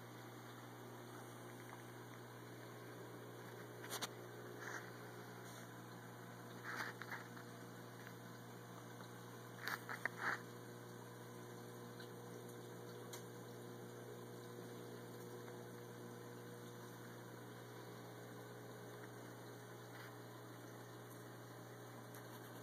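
Steady low hum of a reef aquarium's pumps. A few short soft clicks come in clusters around the middle.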